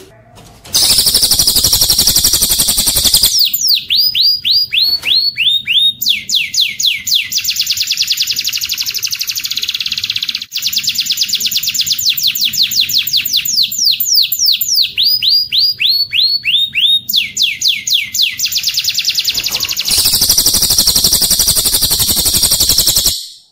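Recorded songbird song of a cililin joined to a domestic canary. A rapid high trill gives way to a long, fast run of downward-sliding whistled notes, and the rapid trill returns near the end before the song stops.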